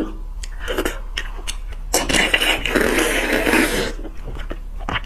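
Slurping and sucking of beef bone marrow straight from the cut end of a bone, a noisy wet sound of about two seconds starting near the middle. Before it, small clicks and scrapes of a metal spoon scooping marrow out of the bone.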